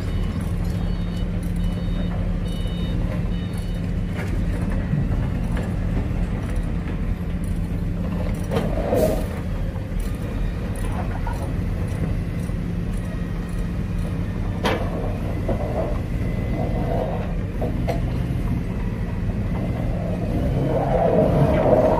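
Forklift engine running steadily with a low drone as the forklift drives on rough ground. A beeping alarm repeats for the first few seconds, and a few knocks and clatters come through, the loudest near the end.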